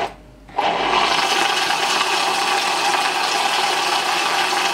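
Personal blender blending a liquid protein shake of whey powder and almond milk. It stops briefly at the start, then starts up again about half a second in and runs steadily.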